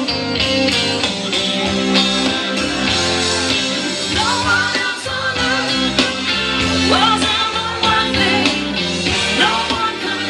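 A rock-and-roll song with a singing voice and guitar, played loud over a club's sound system.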